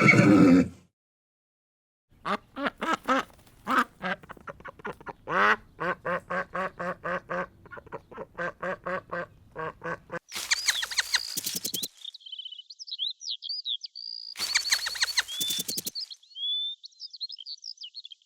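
Duck quacking in a long, fast run of repeated quacks, followed by high-pitched chirping calls with two bursts of rapid clicks in the second half. A horse's whinny ends in the first second.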